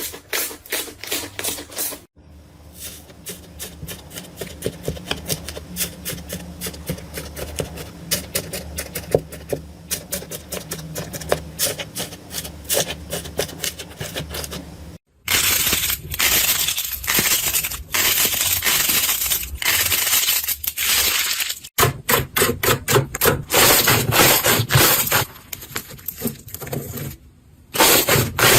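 Slime being squeezed and pressed by hand, with dense crackling and popping, in several short segments that cut off abruptly and start again.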